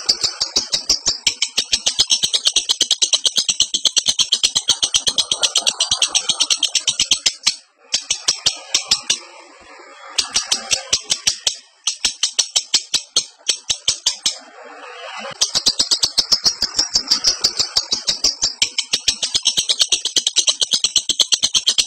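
Lovebird in breeding condition giving its fast, high-pitched chattering call, known as ngekek: a rapid string of sharp notes, several a second. It breaks off briefly a few times in the middle and then resumes.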